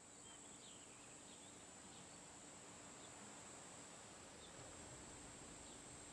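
Faint, steady high-pitched insect drone, with a few short bird chirps in the first second or so.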